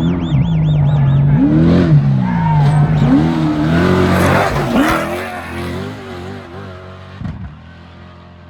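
Off-road race vehicle's engine pulling hard and climbing in pitch through several gear changes as it speeds past, with a rush of noise as it goes by. It then fades away.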